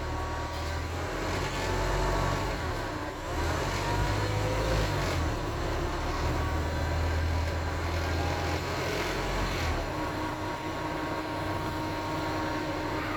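Wright StreetDeck double-decker bus with a Mercedes-Benz (Daimler) OM934 diesel running under way: a low steady engine note with a groaning tone over it that rises and falls in pitch, then holds steady.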